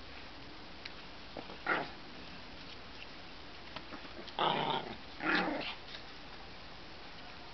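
Small dogs play-fighting, barking and growling: one short bark about two seconds in, then two louder, longer barks close together a little past the middle.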